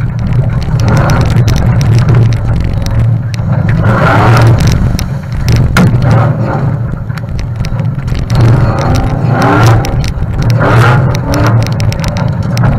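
Off-road four-wheel-drive's engine driving hard along a rough dirt track, heard from a camera mounted on the vehicle. The engine revs rise and fall several times as the driver accelerates and backs off, with frequent knocks and rattles from the vehicle bouncing over the ground.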